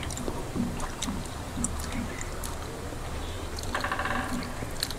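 Eating sounds from two people eating by hand: soft wet chewing, small lip and mouth clicks, and fingers mixing soft rice and dal on steel plates. A short pitched sound comes about four seconds in, over a steady low hum.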